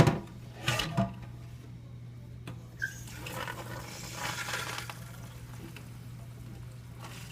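A few light knocks, then about three seconds in water starts running from the refrigerator's water dispenser as a steady hiss, flushing a newly installed refrigerator water filter.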